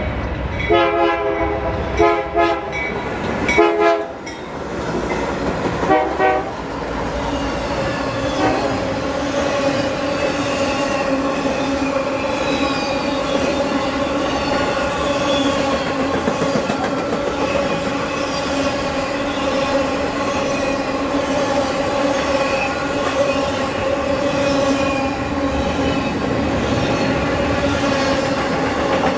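BNSF freight locomotive's air horn sounding four blasts, each a chord of several notes, in the first six seconds or so. The double-stack container train then rolls steadily past, with wheel clatter and a steady whine held over it.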